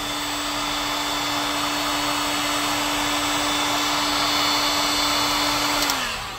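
Handheld heat gun running steadily, a constant hum over a rush of air, blowing on a blob of ABS plastic stuck to a 3D printer hotend to soften it. About six seconds in it is switched off and the hum drops in pitch as the fan winds down.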